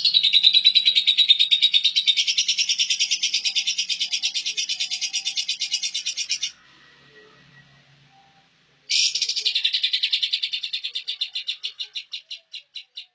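Songbird singing two long, fast trills of rapidly repeated high notes. The first runs about six seconds; after a short pause the second starts about nine seconds in, slowing and fading toward its end.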